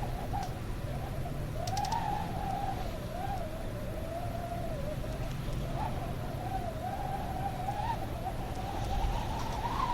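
Wind howling: a wavering, whistle-like moan that keeps rising and falling in pitch over a steady low rumble.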